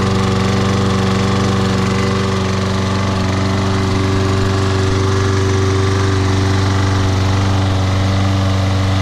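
Briggs & Stratton 190cc single-cylinder engine of a 2009 Toro Personal Pace Recycler lawn mower running at a steady speed, smooth and even.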